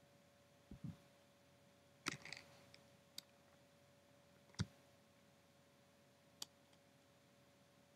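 Near silence broken by a few faint, scattered clicks and small taps, one of them a duller knock about four and a half seconds in, over a faint steady hum.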